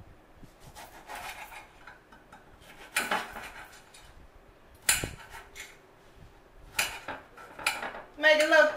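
Knife cutting oranges on a cutting board: four sharp knocks of the blade on the board, a second or two apart, with faint scraping in between. Near the end a woman's voice sounds a few wordless notes.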